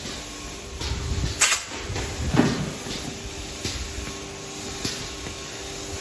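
DeLaval milking parlour equipment running: a steady hum and hiss from the milking vacuum system, with a sharp click about a second and a half in and a lower thump about a second later.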